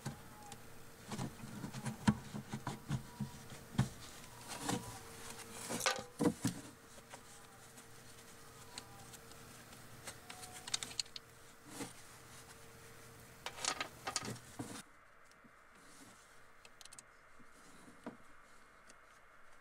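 Leather-gloved hands working at a 12-volt deep-cycle battery's terminal to take off the negative lead: scattered clicks, taps and rustles. Under them is a faint steady hum that cuts off about fifteen seconds in.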